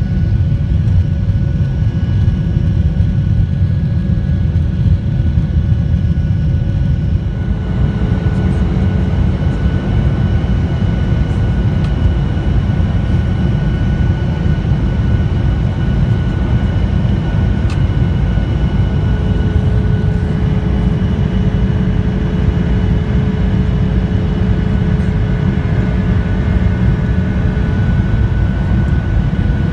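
Steady cabin roar of a Boeing 737-900ER in flight, from its CFM56-7B turbofan engines and the airflow, heard from a window seat over the wing, with a high steady engine whine above the low rumble.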